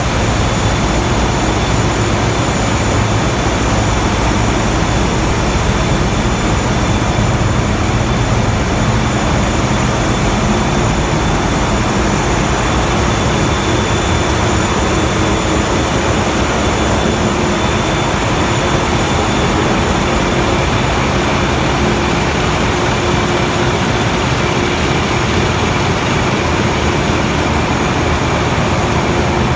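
Loud, steady din of a ferry's engine room with its large marine diesel engines running, a dense unbroken noise with several steady whining tones through it.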